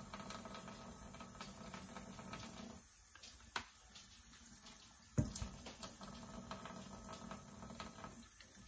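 Faint wet patter of hands picking the membrane off raw pork chitterlings, with two small sharp clicks about three and a half and five seconds in, over a low steady hum.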